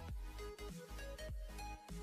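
Electronic background music with a beat.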